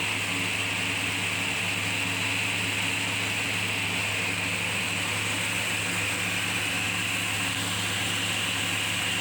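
A 2006 Nissan Navara D40's 4.0-litre V6 petrol engine idling steadily and smoothly, a healthy engine running sweetly.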